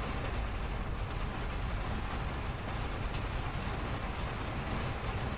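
Steady rain falling on window glass, with a few faint sharp drop ticks, over a continuous low rumble of freeway traffic.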